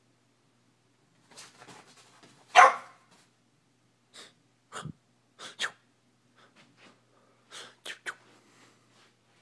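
French bulldog puppy making a series of short, sharp snorts and huffs, the loudest about two and a half seconds in.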